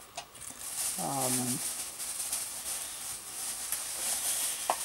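Packaging rustling and crinkling as items are handled and shaken, a steady hissing rustle, with a brief low hum from a voice about a second in.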